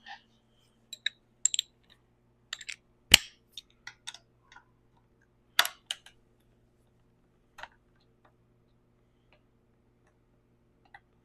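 Irregular sharp clicks and clinks of metal hand tools and driver bits being handled, loudest about three seconds in and again just before six seconds, then only a few faint ticks.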